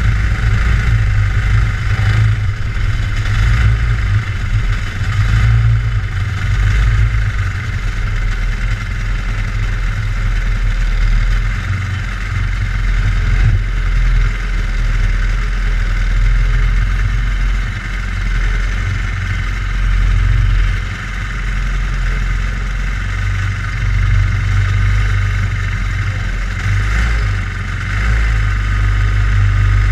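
Racing kart engine heard from onboard, running steadily at low revs with small rises and falls, idling while the kart is stopped on the track.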